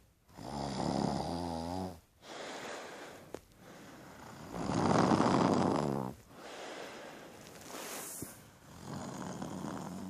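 Snoring in sleep: two long pitched snores, one just after the start and one near the end, with breathing between them. The loudest is a long breath about five seconds in.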